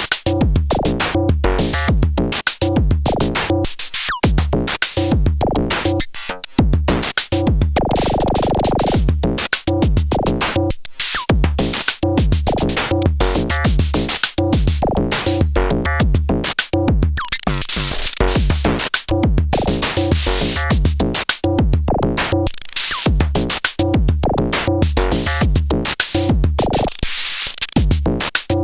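Two Erica Synths Perkons Voice eurorack percussion modules playing a sequenced electronic drum pattern. Deep kick thumps and bright noisy hits repeat in a steady rhythm, with a held pitched tone about eight seconds in.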